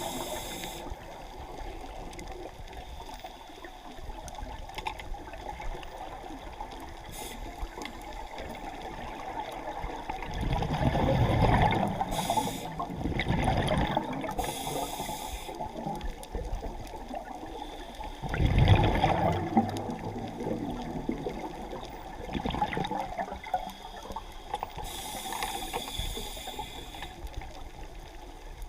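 Scuba diver breathing through a regulator underwater: short hissing inhalations and gurgling bursts of exhaust bubbles, two of them louder, about a third and two-thirds of the way through.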